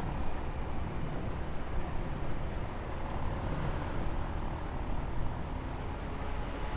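Steady road traffic noise and wind rushing over the microphone, heard from a fixed-gear bicycle riding through city traffic.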